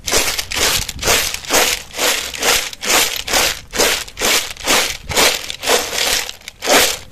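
A mass of snail shells rattling and grinding together in rhythmic strokes, about two a second.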